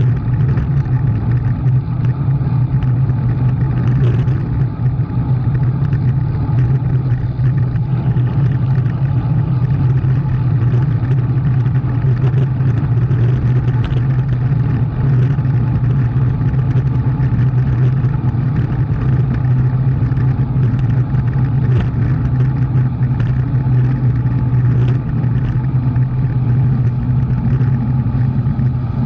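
A motor vehicle's engine running at a steady speed with a constant low drone, under an even rush of road and wind noise.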